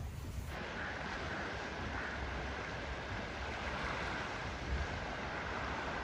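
Steady outdoor wash of wind and distant surf off the open sea, with no distinct events.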